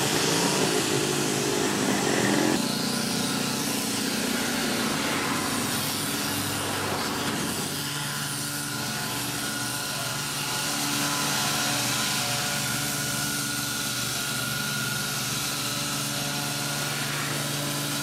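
Truck-mounted mosquito fogging machine running steadily, spraying insecticide fog along the street. The sound changes abruptly about two and a half seconds in.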